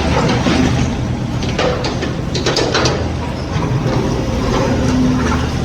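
Mini excavator's diesel engine running steadily, with metallic clanks and rattles in the middle as the machine works.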